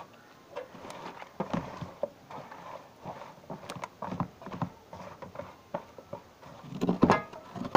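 Irregular taps, knocks and rustling from hands working conch meat in a metal pan, a few strokes a second, with a louder cluster of knocks about seven seconds in.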